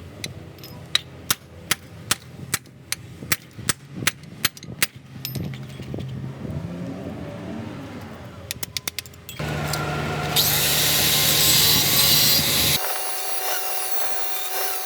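Workshop repair work: a run of about a dozen sharp metal-on-metal blows, two or three a second, then after a pause a power tool starts and runs steadily with a harsh hiss.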